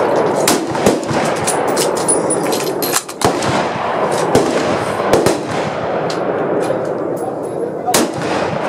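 Gunshots from rifles on a firing range: sharp reports at irregular intervals, the loudest about three seconds in and near the end, over a steady background noise.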